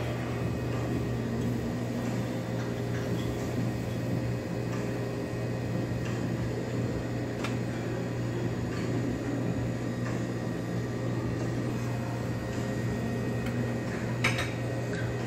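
Steady low machine hum of kitchen or ventilation equipment, with a few faint utensil clicks and a brief clatter near the end.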